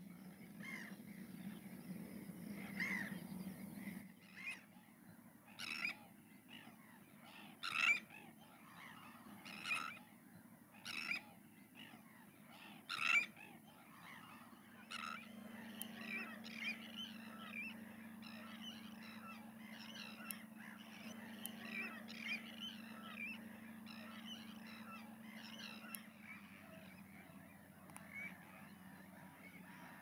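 Harsh single calls from waterbirds, one every second or two, giving way about halfway through to a dense chatter of many birds calling at once.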